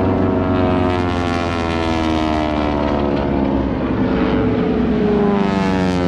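Radial-engine AT-6 Texan propeller aircraft flying a display pass overhead. The engine drone falls steadily in pitch as the plane goes by, and a second falling drone comes in near the end.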